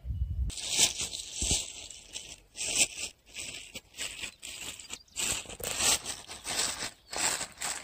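Footsteps crunching and scraping on a gravelly, sandy riverbank, in uneven strokes a little more than once a second.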